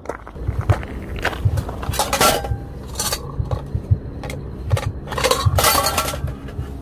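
Hard objects knocking and clinking together in irregular clatters, with two louder bouts of rattling about two seconds in and again around five to six seconds in.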